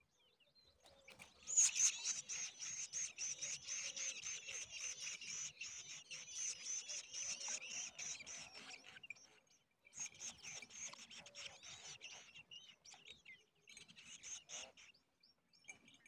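A brood of nestlings giving rapid, scratchy begging calls in a dense chorus, starting about a second and a half in, with a brief pause midway and a few fainter bursts near the end. They are begging for food as an adult arrives at the nest.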